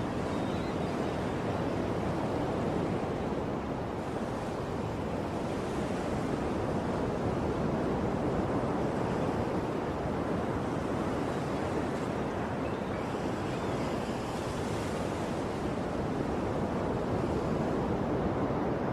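Ocean surf: a steady, continuous wash of waves with no distinct individual breakers.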